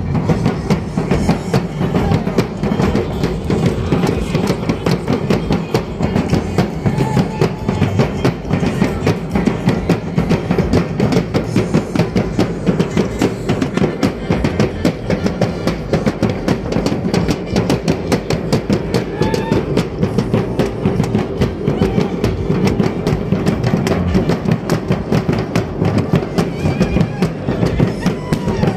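Drum music for a dance troupe, a fast, steady beat that keeps going without a break.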